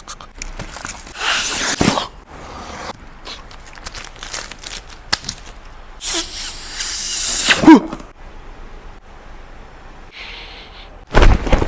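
Packaging being handled during an unboxing: irregular rustling and scraping, in two long stretches about a second in and about six seconds in, with a brief squeak near the end of the second stretch and another burst at the very end.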